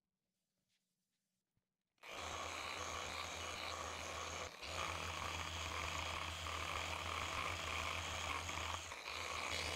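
An electric polishing tool's motor starts about two seconds in and runs steadily, dipping briefly twice, as it buffs a paste-and-wax finish on an epoxy and wood board.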